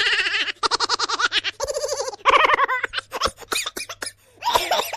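High-pitched giggling and laughter in several short bursts, some broken into quick pulses, as in a comic laughing sound effect.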